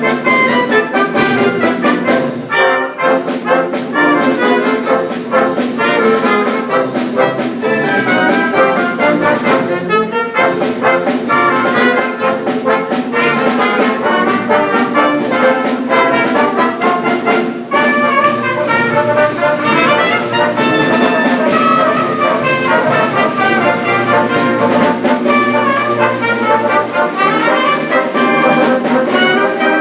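A brass band playing a piece of music, with many horns sounding together, a few brief breaks in the phrasing.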